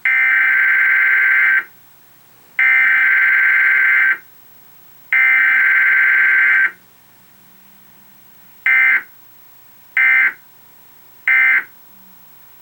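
Emergency Alert System SAME data bursts: three long bursts of shrill two-tone digital data, each about a second and a half with a second's gap, carrying the Required Weekly Test header. Then three short bursts about a second apart, the end-of-message code.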